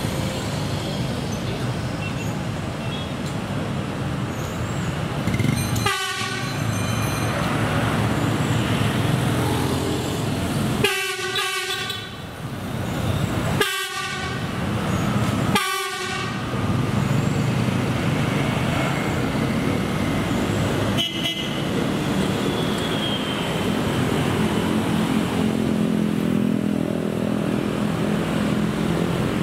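A track-inspection train sounding its horn in several short toots, three of them close together midway, over the steady rumble of the train and street traffic.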